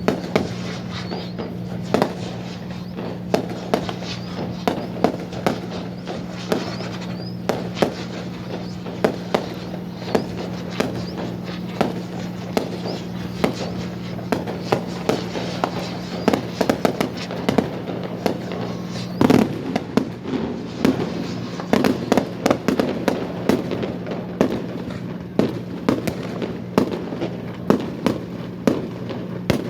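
Fireworks display: a steady run of aerial shells bursting with sharp bangs and crackle, thickest in the middle stretch, with the heaviest bang about two-thirds of the way through. A steady low hum runs underneath.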